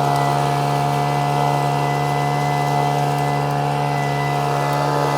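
The small engine of a vac pac prospecting vacuum, running steadily at a constant speed while it sucks up loose gravel.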